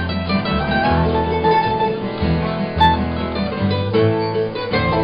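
Acoustic string band playing live without vocals: mandolin and acoustic guitar picking and strumming over a plucked upright bass line.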